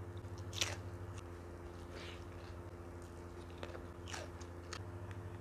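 Close-miked crisp bites and chewing of crunchy fried food and a cucumber slice: a handful of sharp crunches, the loudest about half a second in, over a steady low hum.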